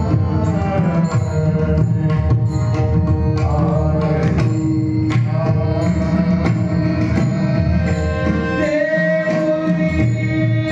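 Male devotional singing in Marathi bhajan style, a held, ornamented vocal line, over a steady mridang (pakhawaj) drum accompaniment.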